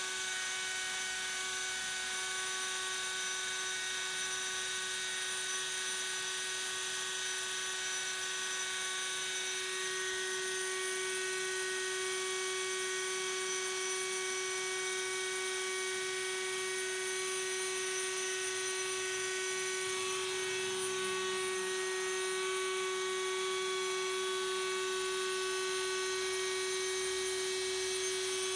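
Small electric milling spindle mounted on the wrist of an ABB IRB 120 robot, running at a constant high speed. It makes a steady motor whine over a hum, with no change in speed.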